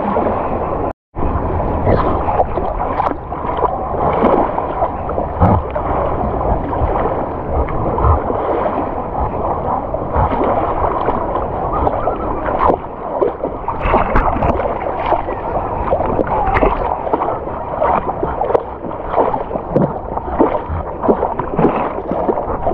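Lake water sloshing and splashing against a dog-mounted camera held at the surface as the dog wades through the shallows: a steady churning wash full of small, sharp splashes. The sound drops out for an instant about a second in.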